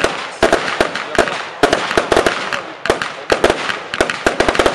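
A 100-shot, 20 mm-calibre consumer fireworks cake firing in rapid succession: a quick run of sharp launch and burst bangs, several a second, with a steady hiss between the reports.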